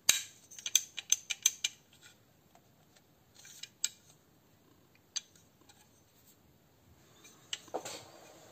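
Small sharp metallic clicks and clinks of HK416 airsoft rifle parts being handled and fitted: a quick run of them in the first second or so, a few single clicks in the middle, and another short cluster near the end.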